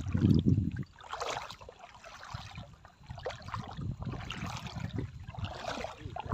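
Sea water sloshing and splashing in surges every second or two, with a heavy low rumble in the first second.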